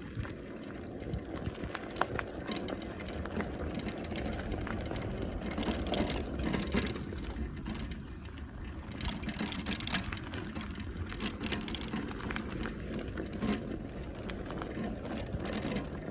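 A bicycle being ridden over a rough path: steady tyre noise with many small rattles and clicks from the bike, and a low rumble underneath.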